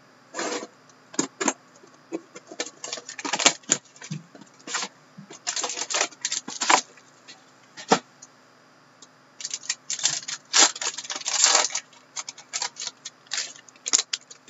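Shrink wrap on a box of hockey cards being slit and torn off, then the wrapped card pack inside opened. It comes as irregular bursts of crinkling and crackling plastic with sharp clicks.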